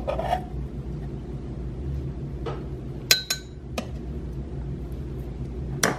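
Metal spoon clinking against a ceramic bowl: a few separate short clinks, two close together about three seconds in and a sharper one near the end, over a steady low hum.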